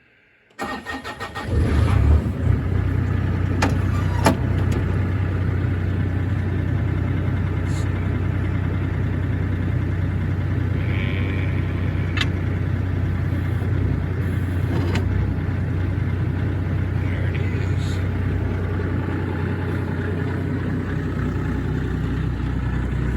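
Excavator's diesel engine being started: the starter cranks briefly and the engine catches about a second and a half in, then runs steadily. A few sharp clicks or knocks sound over it.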